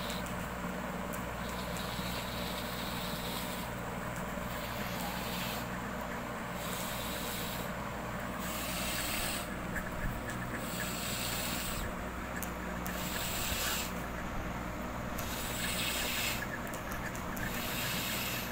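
Steady background hiss with a low hum, at an even level.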